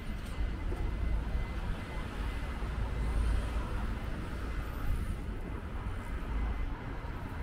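City street ambience: a steady, deep rumble of passing road traffic.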